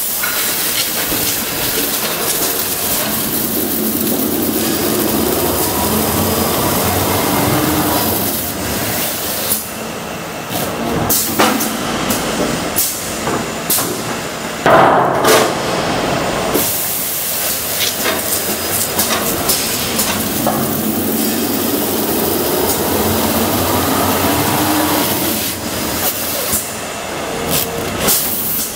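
High-speed automatic stretch film rewinder-slitter running: a steady mechanical whirr with hiss of film running over the rollers, and a hum that rises in pitch twice. Several sharp knocks and bursts of hiss come around the middle.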